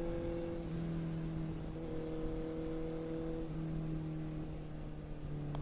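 Motorcycle engine with an aftermarket Scorpion exhaust running steadily at highway cruising speed, its note holding nearly level with small shifts in pitch and dipping slightly near the end.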